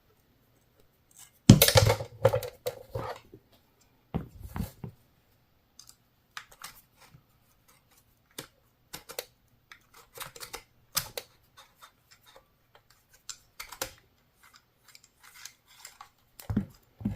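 Small metal parts and screws being handled and fitted on an air carbine at a workbench: scattered light clicks and clinks, with a louder knock about a second and a half in and a few more knocks soon after.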